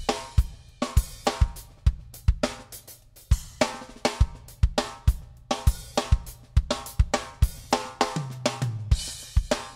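Background music with a steady drum-kit beat: kick drum, snare and hi-hat under a pitched backing.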